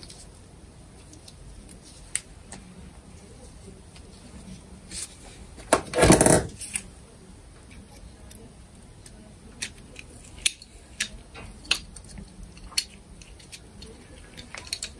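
Small metal clicks and taps as a retaining ring and small steel parts are fitted onto the spindle in an angle grinder's gear housing with pliers. A louder scraping rasp lasting under a second comes about six seconds in.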